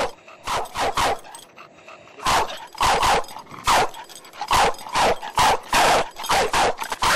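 Bulldog barking over and over, short barks coming in quick runs of two or three a second with brief gaps between the runs.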